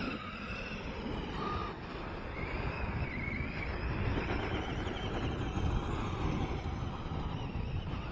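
Radio-controlled trucks driving, their motors whining faintly and rising and falling in pitch, over a steady low rumble of wind on the microphone.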